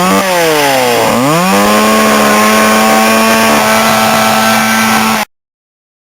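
Small engine revving up, dropping back, then revving up again and holding a steady high speed; it cuts off abruptly about five seconds in.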